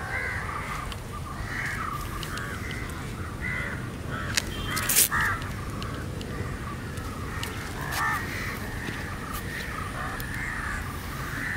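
Crows cawing repeatedly, over a low steady outdoor rumble, with a couple of sharp clicks about five seconds in.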